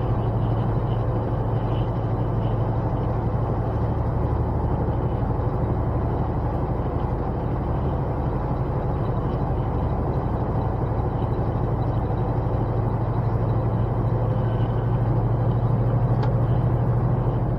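Semi-truck cruising on the highway, heard from inside the cab: the diesel engine runs with a steady low hum under even road noise.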